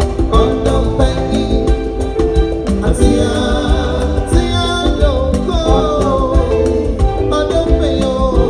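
Live band music with male voices singing, backed by a drum kit, bass guitar and a tall hand drum.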